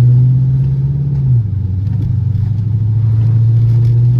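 Chrysler 300C's 5.7 Hemi V8 exhaust running loud under throttle with a steady low drone, its pitch stepping down about a second and a half in.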